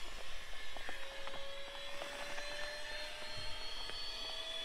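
A droning motor whine whose pitch rises slowly and steadily, over a steady hiss, with a few faint ticks.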